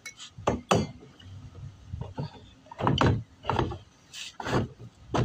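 Irregular knocks, clunks and rustles of gear being handled and fitted into place, in uneven bursts with the loudest knocks just under a second in and around three seconds in.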